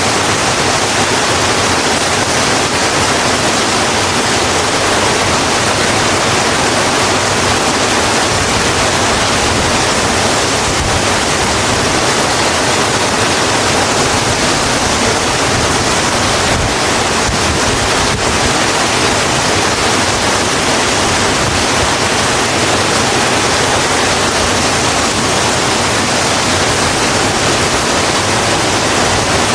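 Steady, heavy rain falling on a road, a dense even hiss with no distinct drops standing out.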